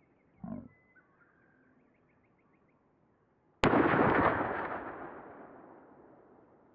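A single gunshot about three and a half seconds in: a sharp crack followed by an echo that fades away over about three seconds. A brief low sound comes about half a second in.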